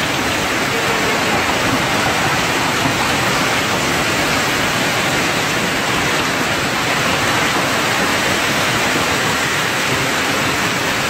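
Heavy hail mixed with rain pelting down on grass, leaves and the ground, a dense, steady rush of countless stones with no single hit standing out.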